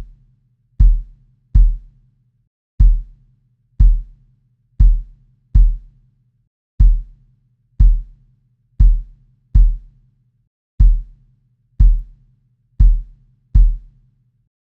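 A sub kick recording of an acoustic kick drum, soloed and looping: deep booming hits in a repeating two-bar pattern, about fifteen in all, with a faint low hum of background noise between them.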